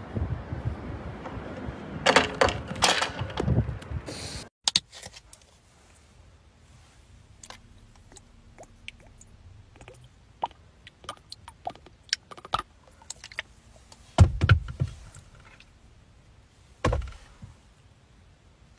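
Wind on the microphone with a few loud knocks and rattles. After an abrupt cut come scattered small clicks and knocks of a plastic squeeze bottle and a small glass being handled inside a car, with two heavier thuds near the end.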